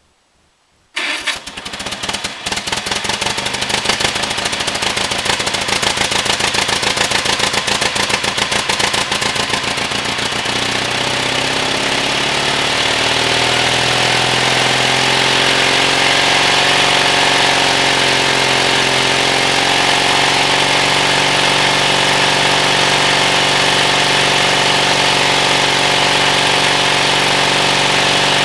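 1946 Caterpillar D6 crawler's engine catching about a second in, firing unevenly and rapidly for several seconds, then settling into steady running after a shift in pitch. It is the first start after years of sitting, when the engine had been thought seized.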